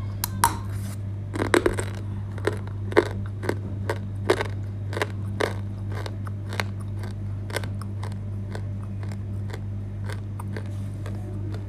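Dry edible clay crunching and cracking close up: a run of sharp cracks, coming thick in the first half and sparser later. A steady low electrical hum runs underneath.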